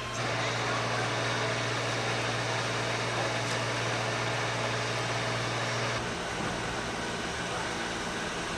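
Steady street background noise picked up on an old camcorder's microphone, with a low hum that stops about six seconds in.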